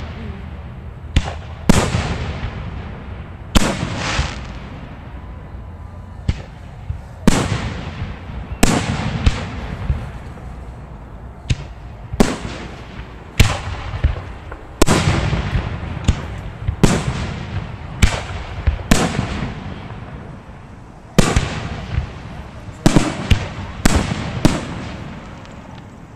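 Aerial firework shells bursting overhead at close range: a loud boom every second or two, each trailing off in an echo, with a quick run of bursts near the end.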